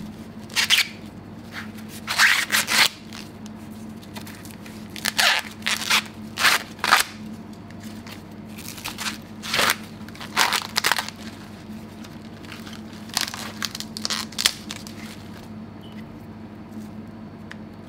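Green husks being torn and stripped from a fresh ear of corn by hand: a series of short crackly ripping pulls at irregular intervals, thinning out near the end as the silk is picked off.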